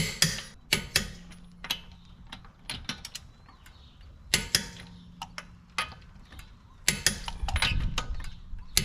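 Torque wrench ratcheting and clicking as wheel lug nuts are tightened: a series of sharp, irregular clicks, coming faster near the end.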